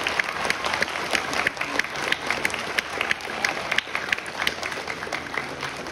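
Audience applauding, a dense patter of many people clapping that tapers off toward the end.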